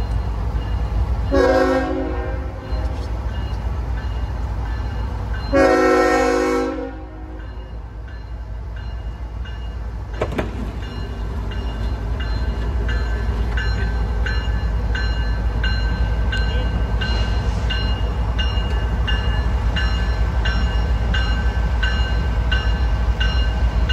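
A CSX freight locomotive's air horn sounds two blasts, a short one and then a longer one, over the steady low rumble of the approaching train. From about halfway through, a grade-crossing bell dings about once a second while the train rolls through the crossing.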